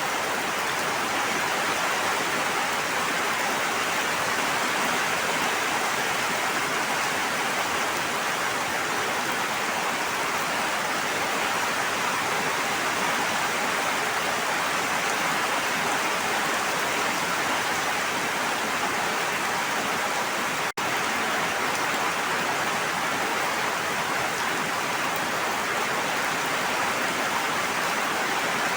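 Steady rushing water, a dense even hiss that cuts out for an instant about two-thirds of the way through.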